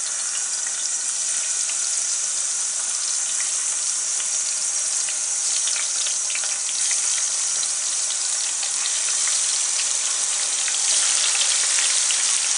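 Par-boiled, towel-dried potato slices sizzling and crackling as they fry in hot oil in a pan. The sizzle grows a little louder near the end as more slices go in.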